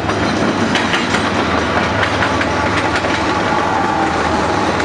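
Norfolk Southern diesel freight locomotives passing close by at a road crossing: the engines running with a steady low rumble while the wheels click irregularly over the rails.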